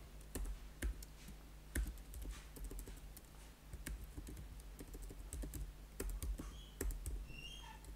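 Typing on a computer keyboard: irregular single keystrokes with short pauses between them.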